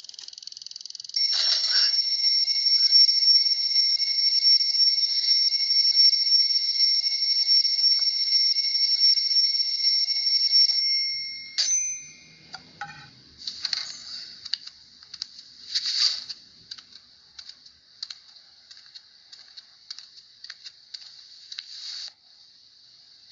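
Alarm clock ringing: a loud, high, steady ring that starts about a second in, lasts about ten seconds, then stops abruptly with a click. After it, faint irregular clicks and rustles.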